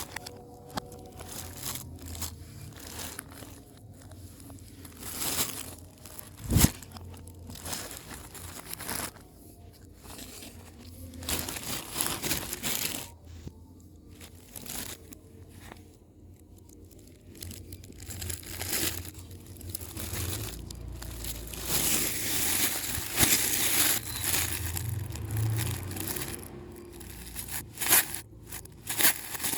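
Packaging being handled and opened: irregular crinkling, rustling and tearing of wrapping, with one sharp knock about six and a half seconds in.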